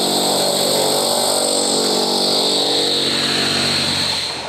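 Power drill motor running steadily under load, boring a hole through the floor for a propane gas line; it eases off just before the end.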